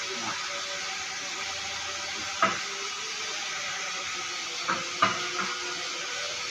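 Steady hiss of background noise, broken by three short sharp knocks: one about two and a half seconds in and two close together near five seconds.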